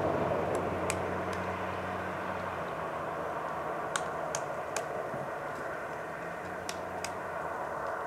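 Steady rumble of road traffic, with about eight sharp taps of a pileated woodpecker's bill striking bark in three short groups: near the start, around the middle and near the end.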